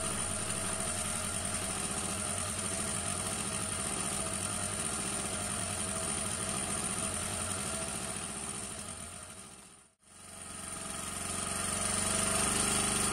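An engine aboard a small fishing boat running steadily with an even drone. It fades out just before ten seconds in and fades back up.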